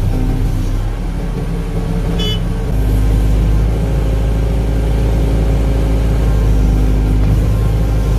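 Hydraulic excavator's diesel engine running steadily, heard from inside the operator's cab. It picks up load and gets louder a little under three seconds in as the boom and bucket work. A brief high chirp sounds about two seconds in.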